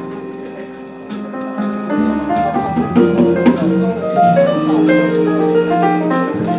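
Live band playing an instrumental passage: sustained keyboard chords over drums, with sharp cymbal strikes every second or so.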